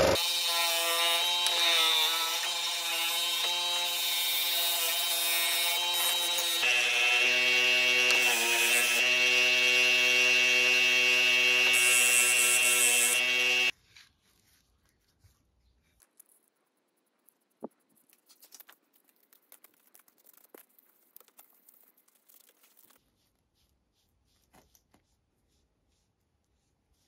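An electric power tool's motor running with a steady pitched hum. Its pitch shifts about seven seconds in, and it cuts off abruptly halfway through. Faint light clicks and handling sounds follow.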